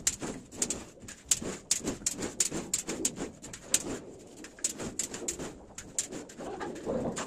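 Steel trowel working sand-cement mortar against a metal mortar pan and the ceiling: many sharp, irregular clicks and scrapes, over a lower sound that comes and goes.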